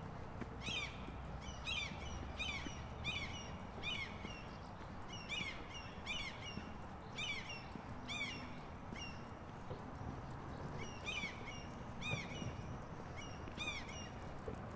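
A bird calling over and over in short, arching notes, about one or two a second, with a gap of a couple of seconds about two-thirds of the way through.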